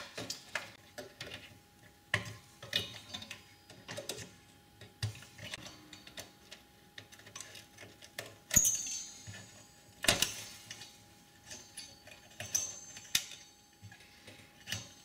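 Irregular clicks, taps and metallic clinks of hands taking apart a Power Mac G4 Sawtooth, first at a ribbon cable and then on the aluminium CPU heatsink. Two sharper metal clacks stand out, about 8½ and 10 seconds in, the first with a short high ring.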